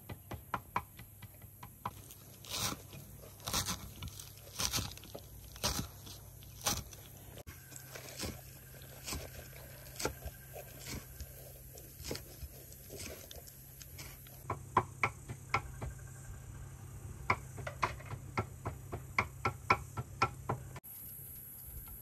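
Kitchen knife chopping greens on a wooden cutting board, first in quick even taps of about six a second, then in heavier strokes about a second apart. Then quieter scraping and scattered ticks as a vegetable is hollowed out, and near the end another run of rapid knife taps.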